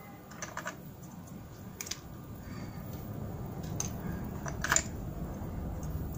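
Small plastic spring clamps clicking and snapping as they are handled and clipped onto a phone's freshly glued back cover to hold it while the adhesive sets; a handful of sharp clicks, the loudest a little before five seconds in.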